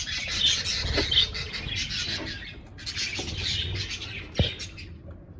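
A flock of budgerigars chattering and chirping continuously, with a short lull partway through. A few sharp knocks sound over the chatter, the loudest near the end.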